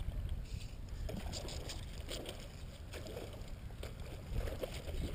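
Irregular splashing and sloshing of shallow water on a grass flat, with scattered sharp clicks, over a steady low rumble of wind on the microphone.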